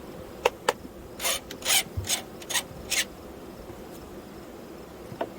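Metal hive tool scraping and prying at wooden hive parts: two sharp clicks, then about six short rasping scrapes in quick succession, and a last click near the end.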